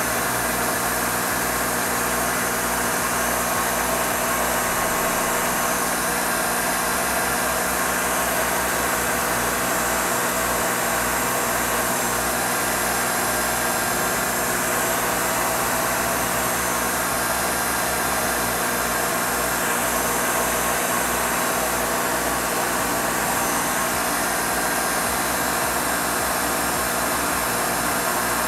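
Newman Whitney S-290-BF 36-inch planer running steadily at full speed with no stock being fed, its 50-horsepower motor and helical cutterhead giving a constant hiss with several steady whining tones.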